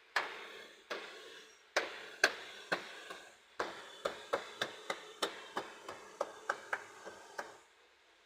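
A series of about twenty sharp knocks, spaced out at first, then coming fairly evenly at about three a second before stopping.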